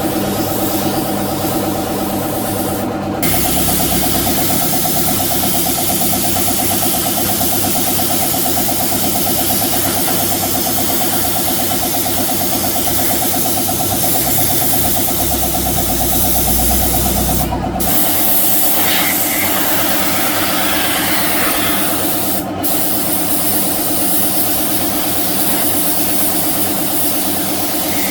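A motor-driven machine running steadily with a hiss over its hum. The sound changes abruptly about three seconds in and again near eighteen seconds.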